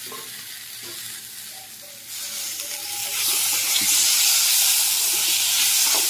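Chopped tomatoes sizzling in hot oil with onions and spices in a kadai, stirred with a steel spatula. The sizzle is moderate at first, then turns into a much louder, steady hiss about two seconds in as the tomatoes are worked into the hot pan.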